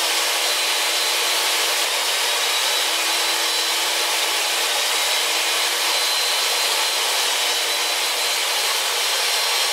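Portable jobsite table saw running steadily with an even whine while strips of wood are fed through the blade, cutting the corner out of each frame piece to form a rabbet.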